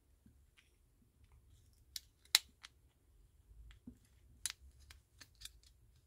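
Small sharp plastic clicks as the circuit board and parts of a Land Rover remote key shell are handled and fitted by hand: a few clicks about two seconds in, the loudest of them, then a quicker run of clicks near the end.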